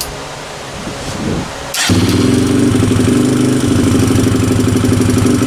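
Kawasaki KLX 140's small four-stroke single fires up about two seconds in, on its first start with a newly fitted Mikuni VM26 carburetor, then runs steadily at a fast idle that is a little high.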